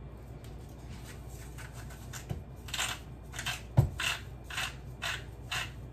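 Salt being shaken from a salt shaker: a run of short, gritty rattles at about two a second, getting stronger partway through, with one dull knock among them.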